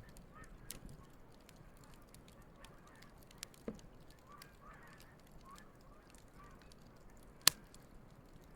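Wood campfire crackling with scattered sharp pops, one much louder pop near the end. Geese honk faintly in the distance through the middle.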